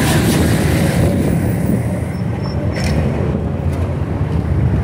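Steady low outdoor rumble of vehicle engines mixed with wind buffeting the microphone.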